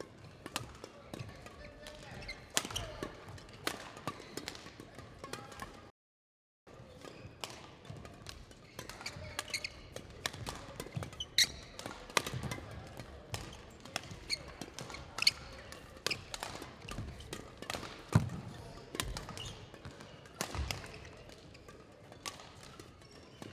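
Badminton rally: repeated sharp clicks of rackets hitting the shuttlecock, brief squeaks of court shoes and heavier thuds of players' footsteps and landings on the court floor, echoing in a large hall.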